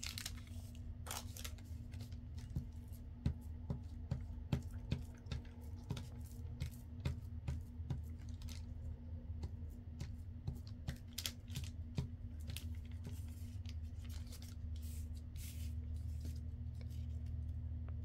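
Paper being handled and glued by hand: scattered rustles, crinkles and light taps, with a glue stick rubbed over the paper, over a steady low hum.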